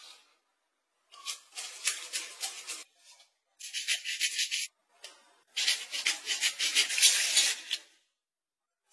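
Clear plastic food-prep glove crinkling and rubbing as a hand squeezes and rolls soft purple taro paste around a filling, in three bursts with silent gaps between them.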